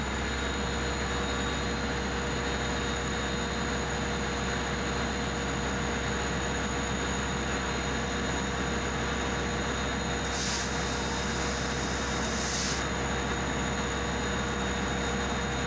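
Long Island Rail Road DE30AC diesel locomotive idling steadily at a standstill, with a low engine hum and a constant whine. About ten seconds in, a high hiss joins it for roughly two seconds.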